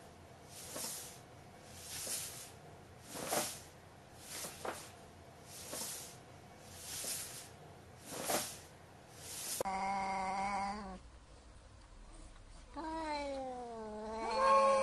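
Soft rustling bursts from a paper bag with a cat inside, about once a second. About ten seconds in, a cat begins yowling: a long, drawn-out call, a pause, then a louder call that rises and falls in pitch. This is caterwauling typical of two cats squaring off.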